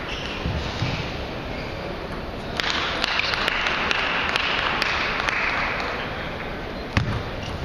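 Table tennis balls being struck and bouncing: scattered sharp clicks over steady hall noise, with one louder knock about seven seconds in.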